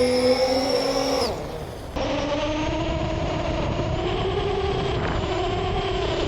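Radio-controlled car with a Traxxas VXL brushless system running on sand: a high motor and gear whine drops in pitch and fades about a second in. After a cut, a steady whine carries on over a rushing noise.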